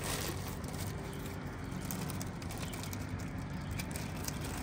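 Clear plastic bag crinkling now and then as it is handled, over a steady low hum.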